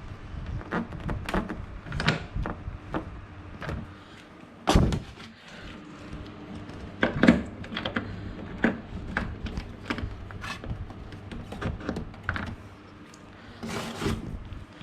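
Evaporative air cooler and its parts being handled: irregular knocks and clicks, with heavier thumps about five and seven seconds in and a short rustle near the end.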